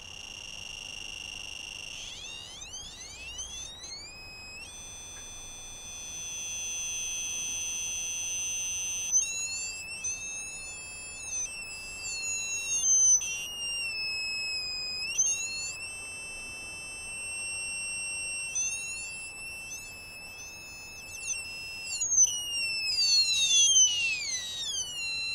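Piezo buzzer disc driven by an electronic oscillator, sounding high, pure electronic tones. A steady high tone alternates with stretches where several tones sweep up and down in pitch at once, with abrupt stops and restarts.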